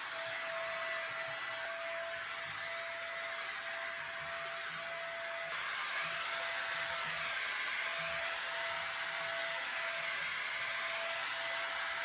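INGCO SPG3508 450 W electric HVLP spray gun running while spraying paint: a steady whine from its turbine motor over the hiss of air and atomised paint.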